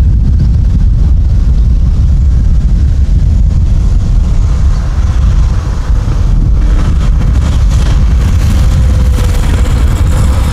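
Wind buffeting the microphone, with a mini bike's small engine running in the distance and growing louder as the bike rides closer in the second half.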